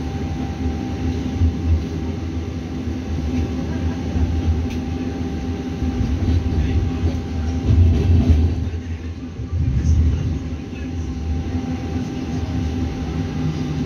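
Tram running on its rails, heard from on board: a steady low rumble with a thin constant whine above it, swelling louder about eight and ten seconds in.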